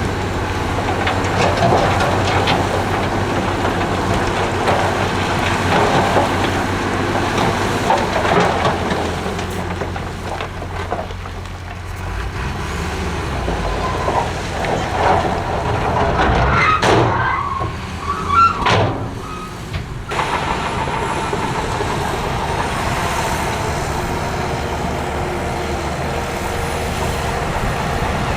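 Heavy earthmoving machinery running, diesel engines working steadily. About two-thirds of the way through comes a short cluster of squeals and metal clanks.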